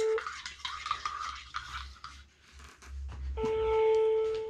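Telephone ringing tone heard over a cordless phone's loudspeaker: one steady ring ends just after the start and the next begins about three and a half seconds in, the line ringing out and not yet answered. Between the rings, light knocks and rustling of handling and movement.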